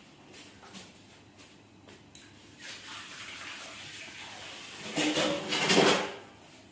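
Water running and pouring into a container, building from about two and a half seconds in and loudest for about a second near the end.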